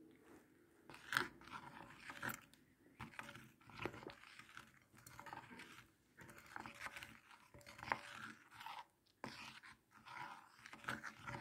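A spoon stirring and mashing a wet yellow clay paste in a glass bowl, with faint, irregular scraping and small clicks as lumps of clay are rubbed against the sides of the bowl.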